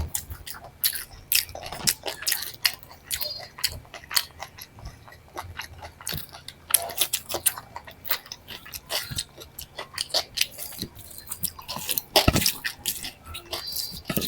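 Close-miked eating sounds: a person chewing and biting, with many quick wet mouth clicks and smacks and a louder bite about twelve seconds in.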